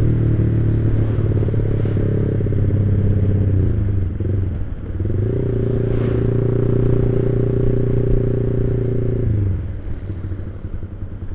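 Motorcycle with a WRX GP5 aftermarket exhaust (25 cm muffler with a half baffle) running at a steady engine note, with a deep, round bass and no popping or burble. The note dips briefly about four seconds in, picks up again, then falls away as the throttle closes near the end.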